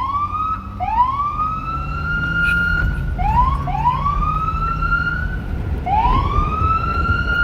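Police car siren wailing. Each tone rises steeply and then holds high, and the siren restarts its rise several times; the last rise, about six seconds in, holds steady. A low rumble runs underneath.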